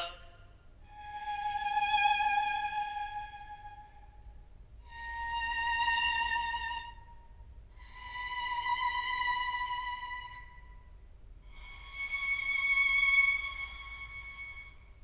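Four sustained bowed-fiddle notes from a sampled Kontakt instrument, played one after another. Each swells in and fades over about three seconds with a slight vibrato, and each is a little higher in pitch than the one before.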